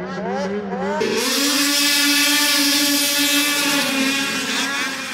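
Snocross race snowmobile's two-stroke engine revving: uneven throttle blips, then about a second in it jumps to high revs and holds them steady for some three seconds before easing and wavering again.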